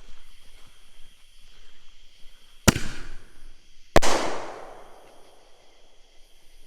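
Consumer artillery ball shell firing: two sharp bangs about a second and a quarter apart, the second the loudest, with a long echoing tail. The first is the lift charge launching the shell from its mortar tube, the second the shell bursting in the air.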